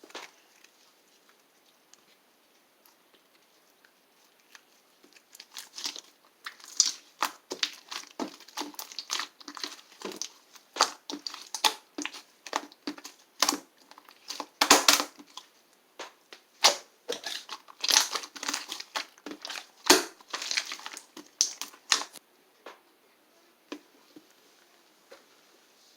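Slime being squeezed and worked by hand, making a dense run of crackling clicks and pops. It starts about five seconds in and stops a few seconds before the end.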